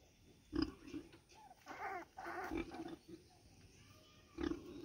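Nursing sow giving short, low grunts while her piglets suckle, with a couple of higher-pitched, voice-like calls in the middle.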